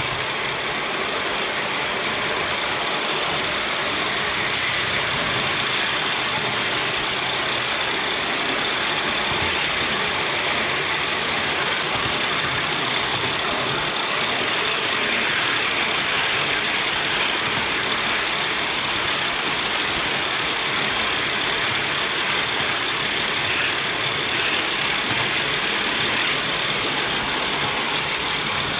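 LBSC Heilan Lassie, a 3.5-inch gauge live steam model of an LNER A1 Pacific, running along the track under steam. A steady mix of its exhaust and its wheels on the rails, heard close behind the cab.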